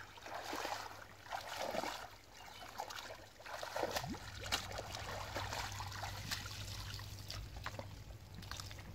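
Water trickling and dripping from a freshly hauled cast net, with sloshing from legs wading through shallow muddy water.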